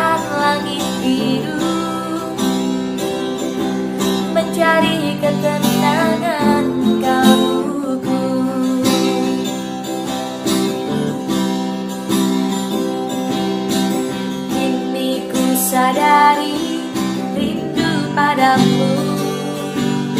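Music led by strummed acoustic guitar, with a melody line gliding over the chords in places.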